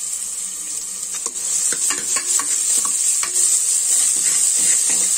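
Chopped onions sizzling in hot sesame oil in an aluminium pressure cooker. From about a second in, a metal ladle stirs them, scraping and knocking against the bottom of the pot in quick irregular strokes.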